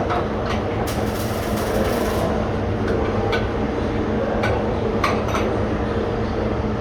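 Aluminium welding arc buzzing steadily, a constant low hum with a few sharp crackles and clicks.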